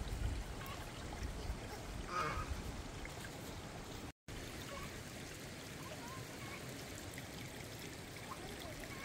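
Steady rush of running water, with a faint short call about two seconds in.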